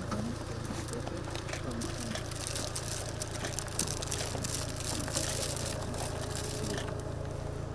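A steady low rumble with faint voices of people close by and a few small clicks.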